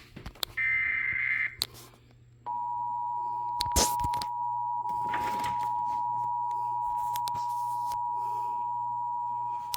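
Emergency Alert System two-tone attention signal (853 Hz and 960 Hz sounded together), a steady loud tone that comes on about two and a half seconds in and holds, announcing a tornado warning. A short higher buzz sounds about a second in, and a sharp click comes a little after the tone begins.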